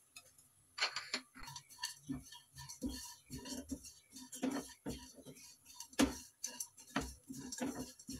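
Wooden spatula knocking and scraping against a non-stick frying pan while stirring chopped almonds, pistachios and grated coconut as they dry-roast: a run of irregular light knocks starting about a second in.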